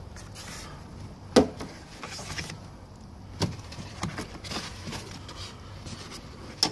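Plastic bolt cover on a GM truck's inner door panel being pried off: a few sharp plastic clicks and snaps, about three, with light scraping and handling noise between them.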